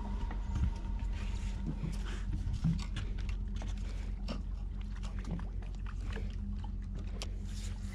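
Steady low hum of a fishing boat's idling engine, with light irregular clicks and taps over it.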